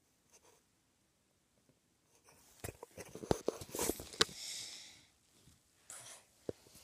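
Close handling noise: a run of clicks, taps and rubbing, with a short hiss near the middle, after about two seconds of quiet.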